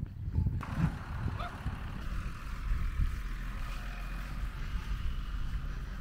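Wind buffeting the microphone: an uneven low rumble, with a faint steady hiss over it from about half a second in.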